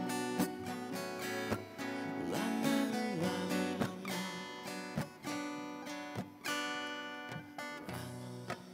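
Acoustic guitars playing an instrumental passage of a song: strummed chords with ringing notes, no singing.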